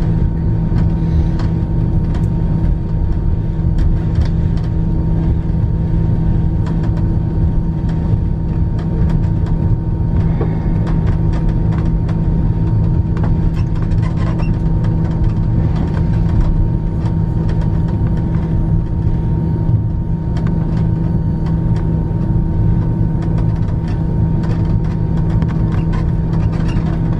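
Steady cabin hum of an Airbus A340-300 taxiing, its four CFM56-5C engines at idle, heard from inside the cabin, with a few steady tones running through it.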